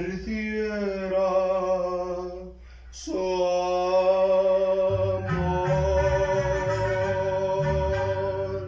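A male voice holds the long final notes of a ranchera song, with vibrato. There is a short break about three seconds in, then a second sustained note over instrumental backing, and a bass line comes in about five seconds in.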